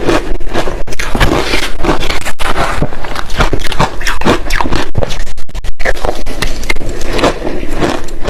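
Close-miked chewing of crushed ice with passion fruit: a rapid, continuous run of loud crunches, broken by a couple of brief pauses.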